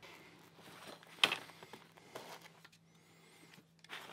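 Handling of a coil of perforated metal hanger strap and a pair of tin snips: light scraping and metallic ticks, with one sharp metallic click about a second in.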